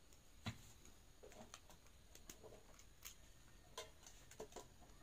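Faint, scattered small plastic clicks and taps from handling blood glucose testing supplies, including a lancing device, with a sharper click about half a second in.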